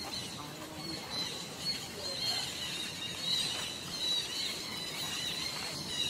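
Many short, high-pitched squeaky calls in quick series from animals, over a faint steady high whine.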